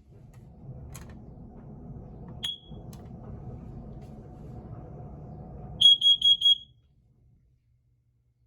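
Household smoke alarm being tested: one short chirp about two and a half seconds in, then near the six-second mark a quick run of five loud, high-pitched beeps that stops abruptly. Before the beeps there is a low rumble.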